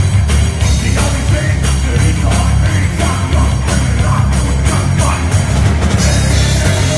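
A rock band playing loud live in a room: bass guitar and drum kit with steady drum hits, and the cymbals growing louder about six seconds in.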